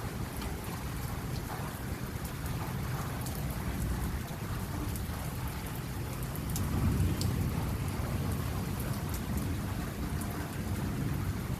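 Steady rain falling, with a low thunder rumble underneath that swells about seven seconds in. Sharp drops tick now and then over the hiss.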